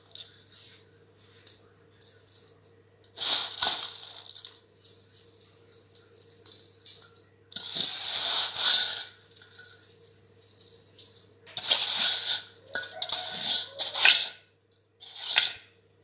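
Dry roasted vermicelli strands pouring off a steel plate into a pot of hot water, with a rattling, rustling hiss that comes in several separate pours, the longest near the middle and near the end, as the plate is tipped and the last strands are pushed off by hand.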